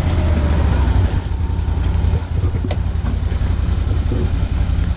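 Can-Am Defender XMR side-by-side's V-twin engine running at low speed as it drives slowly on concrete, with one sharp click about halfway through.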